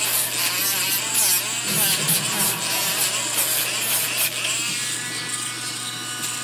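Small hand-held rotary tool with an 80-grit sanding disc running and grinding against a soldered silverware piece, a steady buzzing whine that picks up a higher tone about two-thirds in. The sanding is cleaning black soldering flux off the joint.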